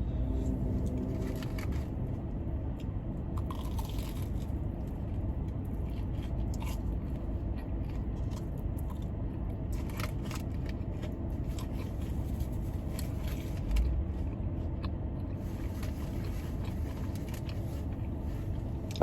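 Bites and chewing of a Korean cheese corn dog, with scattered crisp crunches, over the steady low hum of a car's air conditioning.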